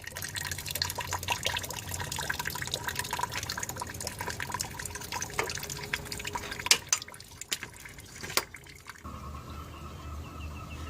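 Liquid dripping and trickling, a dense patter of small drips, with a few sharper knocks. About two seconds before the end it gives way abruptly to a steady low hum.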